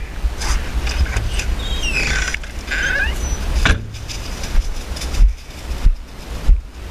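A door creaking open with a few short squeaks from its hinge, followed from about halfway by wind buffeting the microphone in several loud gusts.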